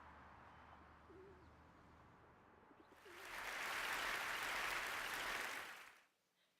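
Audience applause that swells in about three seconds in, holds for about three seconds and dies away. Before it there is only faint room noise with a low hum.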